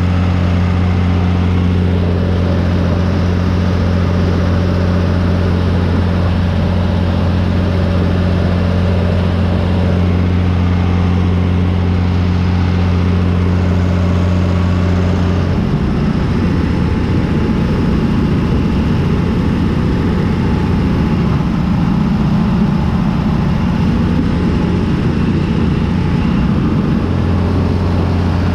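John Deere 3350 tractor's diesel engine running steadily under load while harvesting corn with a Zmaj 222 corn picker. About halfway through the engine's steady drone turns uneven and wavering for roughly ten seconds, then steadies again.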